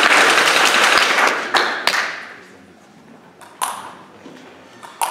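Spectators clapping after a point in a table tennis match, dying away about two seconds in. After that come a few single sharp taps of the table tennis ball as the next serve is readied.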